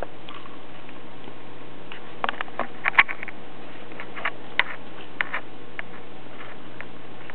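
A kitten's paws and claws tapping and skittering on the floor as it bats and pounces on a toy mouse: a cluster of light, irregular clicks and taps from about two seconds in until about six seconds in, over a steady faint hum.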